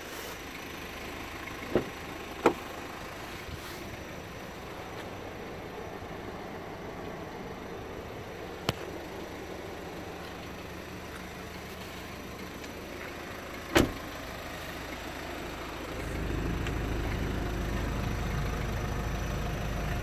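Steady background with a few sharp clicks and knocks; about sixteen seconds in a low steady rumble comes in, the Ford Transit Connect's diesel engine idling.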